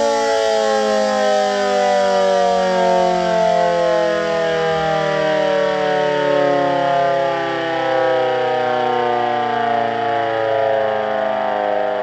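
GS CS-10V15QT warning siren sounding, its pitch sliding slowly and steadily downward. The siren has bad bearings.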